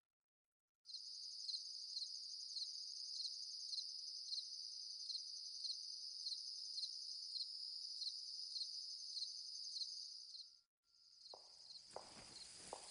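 Crickets chirping at night: a steady high trill with a louder chirp about twice a second, starting about a second in and cutting out briefly near the end. In the last second or two a low rumble and irregular knocks come in beneath it.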